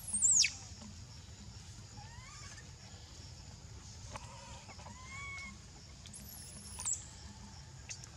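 Young macaque monkeys squealing: a sharp, high shriek that falls steeply in pitch right at the start, the loudest sound, then softer short chirps, and a long thin high squeal about six seconds in that drops off at its end.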